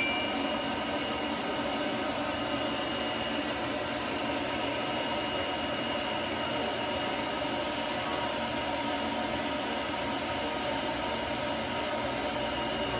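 Dog grooming dryer blowing steadily: a constant rush of air with a faint steady whine over it.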